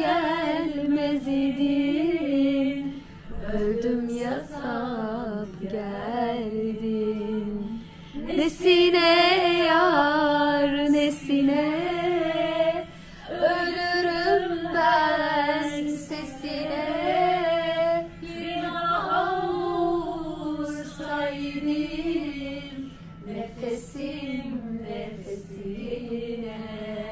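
A woman singing a slow Turkish song in long, wavering held notes, with short pauses between phrases.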